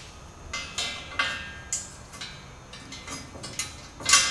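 Metal rear gate of a trailer being worked loose and lifted out, a series of light metallic clinks and rattles with a louder clank near the end.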